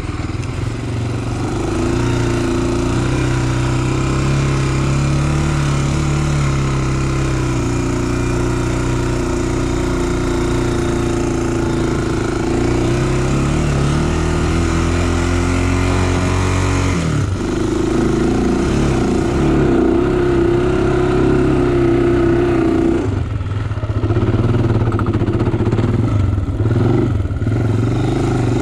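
Honda sport ATV's single-cylinder four-stroke engine running under way, its pitch rising and falling with the throttle. The engine note drops off briefly about two-thirds of the way through, then picks up again.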